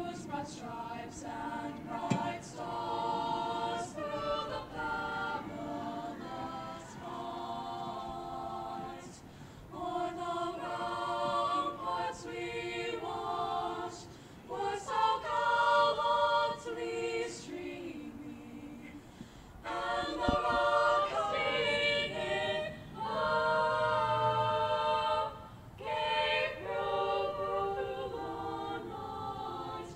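A teenage girls' choir singing a cappella, with several voices together. The song comes in sung phrases separated by short breaths.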